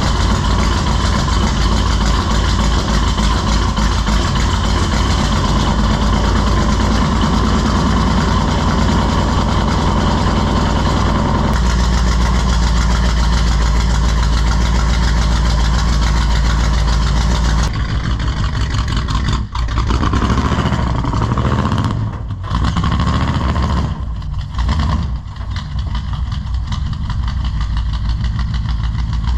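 1983 GMC K2500's carbureted engine idling steadily. About two-thirds of the way in the sound changes, turning less even with a few brief dips in loudness.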